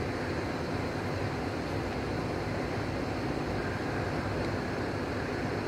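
Steady background noise in a large room: an even hum and hiss with a faint steady low tone and no distinct events.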